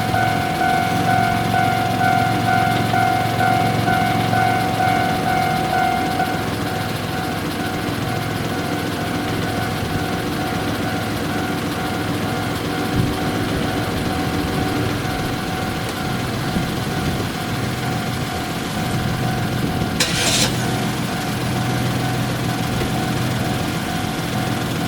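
Japanese level-crossing warning bell ringing its repeated "kan-kan" over the low hum of idling engines. The bell is louder for the first six seconds, then continues more faintly, and a short hiss comes near the end.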